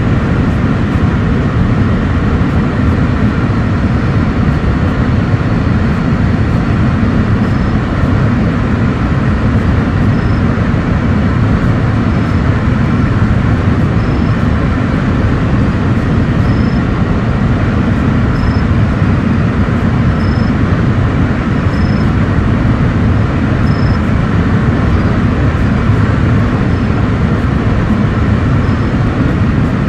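Freight cars of a CSX manifest train rolling past: a steady, loud rumble of steel wheels on rail, with a faint high tick about every two seconds.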